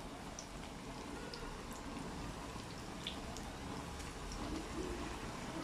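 Potato-and-Indomie-noodle pieces deep-frying in very hot oil: a steady sizzle of bubbling oil with scattered small crackling pops.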